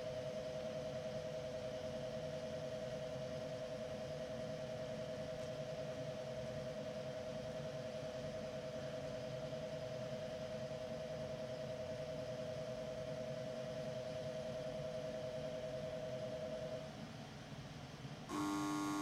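Station departure buzzer ringing steadily on two close pitches with a slight flutter, signalling the train's departure; it cuts off about seventeen seconds in. Near the end a louder tone with several pitches starts.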